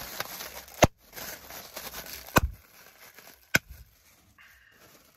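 Clear plastic air-pillow packing being squeezed by hand and popping: three sharp pops over about three seconds, with plastic crinkling between them.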